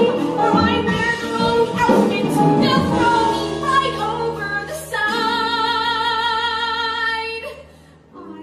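A woman singing a musical-theatre solo over instrumental accompaniment. The words move quickly at first; about five seconds in she holds one long note with vibrato, which stops about a second before the end.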